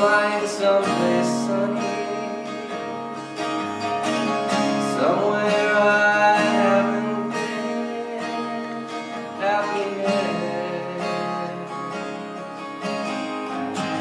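Acoustic guitar strummed and picked in an instrumental passage of a song, the chords ringing on and the playing growing gradually softer toward the end.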